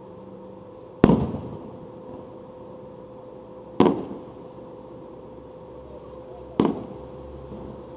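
Aerial firework shells bursting in the sky: three sharp booms about three seconds apart, each followed by a fading echo.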